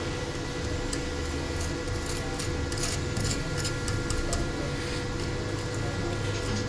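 Stick-welding arc from an EDON MMA-200 inverter welder set low, at about 120 amps, crackling irregularly with sharp ticks over a steady hum.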